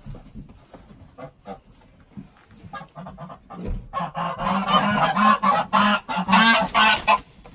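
Domestic geese honking, a rapid run of loud, harsh calls starting about four seconds in and stopping shortly before the end, the alarm of geese being grabbed in their pen. Before it, light scuffling and knocks.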